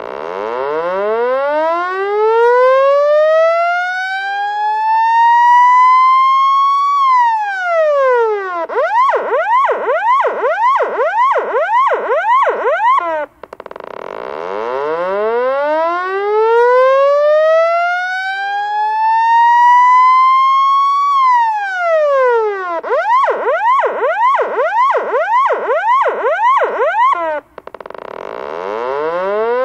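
Loud electronic police siren cycling through its patterns. A slow wail rises over about seven seconds and falls back. It then switches to a fast yelp of about two sweeps a second, which cuts off suddenly before the wail starts again. The cycle runs twice.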